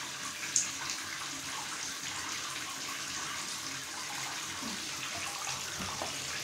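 Shower water running into a bathtub with a steady hiss of falling water, and one brief click about half a second in.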